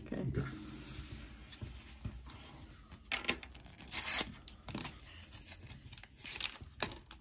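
Pokémon booster pack's foil wrapper being torn open by hand, with several short rips and crinkling as it is handled; the loudest rip comes about four seconds in.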